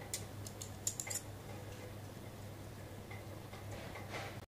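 A few light clicks and soft rustles of hands handling satin cloth on a table and setting scissors to it, over a faint steady hum; the sound cuts off suddenly just before the end.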